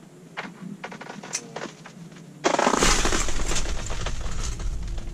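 A few light clicks and taps, then about halfway through a sudden loud crunching and rustling with a low rumble underneath: handling noise as the camera is knocked and moved.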